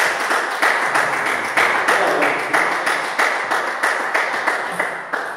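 A small audience applauding between table tennis points. The clapping dies away towards the end.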